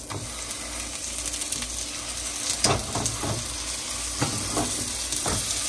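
Vegan burger patties sizzling in oil in a nonstick frying pan. A spatula scrapes and taps against the pan about five times in the second half as the patties are turned.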